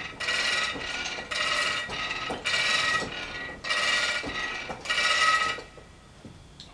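A metal ratchet mechanism on the sawmill being worked in six strokes about a second apart, each stroke a run of ringing clicks, then it stops.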